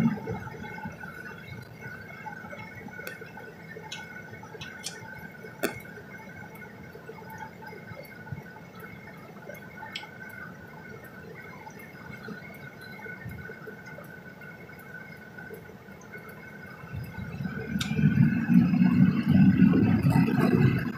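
Cab of a 2001 Duramax 6.6 V8 turbodiesel pickup: for most of the stretch a quiet, steady hum with a few scattered raindrop ticks while the truck waits. About 17 seconds in, the diesel engine grows loud as the truck accelerates away, on a test drive after a new fuel filter head assembly.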